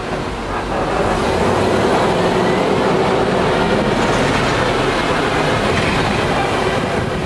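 Open-sided safari truck rattling and clattering as it jolts over rough, bumpy road, a dense steady clatter that grows louder about a second in.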